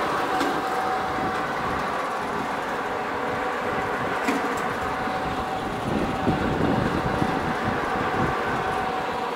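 Industrial cabbage-shredding machine and its conveyor running steadily: a constant whine from the electric worm-gear drive motors over a continuous mechanical rumble, with a few light knocks in the second half.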